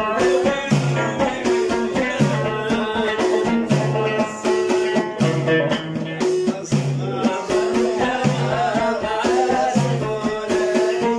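Middle Atlas Amazigh folk music: a loutar lute playing a repeating low riff over a steady beat of hand percussion, with singing.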